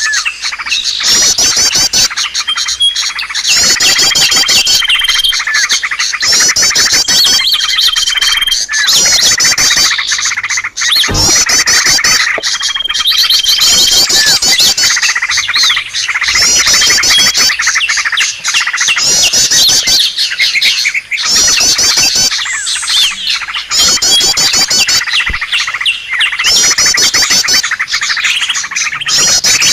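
Dense chorus of small songbirds from a bird-luring call recording: rapid high twittering trills repeating every second or two, with a few short held whistles.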